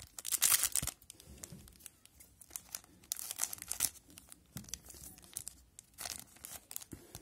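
Foil wrapper of a hockey trading-card pack crinkling and being cut open with scissors, in three bursts: about the first second, around three to four seconds in, and briefly near six seconds.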